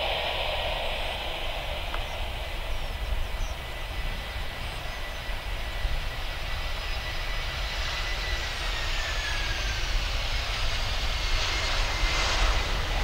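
Airbus A320-214's CFM56 turbofan engines running at low approach power as the airliner comes in to land. The steady jet whine is over a rushing roar, and the whine slides gradually lower in pitch in the second half as the aircraft passes.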